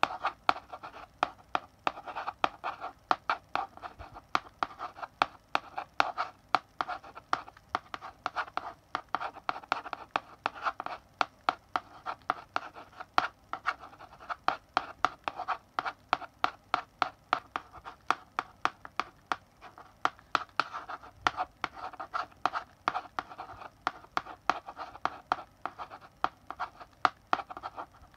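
Chalk writing on a blackboard: quick sharp taps and short scratching strokes, several a second in an uneven rhythm, without pause.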